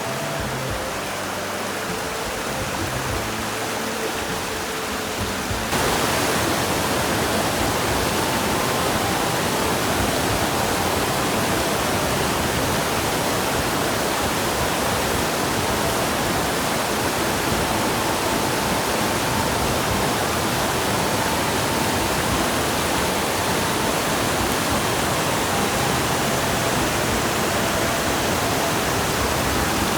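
Steady rushing of High Falls, a waterfall, growing louder about six seconds in, with faint music underneath at first.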